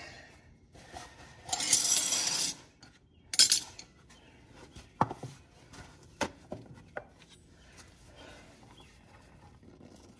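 Hydraulic oil filter being spun off by a gloved hand under a John Deere 2025r tractor: metallic clinks and scraping against the frame. There is a harsh rushing scrape lasting about a second, starting about a second and a half in, a shorter one soon after, then a few light clicks.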